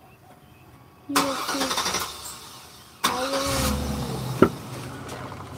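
A car nearby: two sudden loud stretches of noise, the first about a second in and the second about three seconds in with a low rumble under it.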